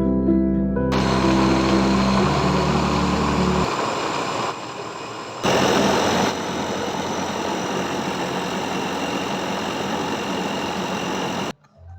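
A small electric motor running with a steady whirring hum, changing level a couple of times in the middle and cutting off abruptly near the end. Background music plays over the first few seconds.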